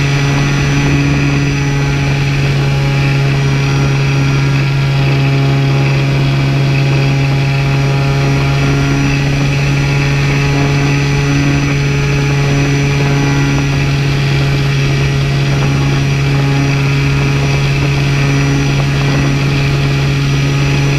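Propeller aircraft engine running steadily in flight, heard close up from on board: a constant low drone with a buzzing stack of overtones.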